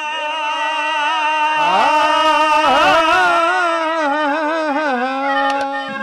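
A man singing a Haryanvi ragni at full voice into a microphone. He holds a long high note, bends it through a wavering ornamented run in the middle, and settles on a slightly lower held note near the end.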